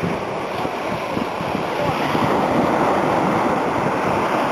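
Sea surf: waves breaking and washing in, with wind buffeting the microphone. The rush grows a little louder about halfway through.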